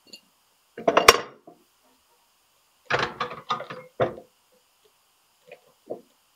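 Steel pipe and the vise of an abrasive chop saw being handled and clamped: a sharp metal knock about a second in, a burst of clatter and clanks around three to four seconds, then a few light taps.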